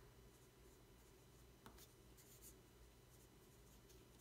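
Faint scratching of a 4B graphite pencil on watercolour paper, in short strokes as a signature is written, with a light tick about a second and a half in.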